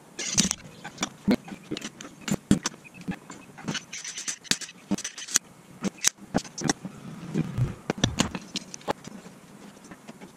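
Metal hand tools and a slide hammer clinking and knocking against a motorcycle brake caliper while it is worked to free its stuck pistons: a string of irregular, sharp metallic clicks and knocks.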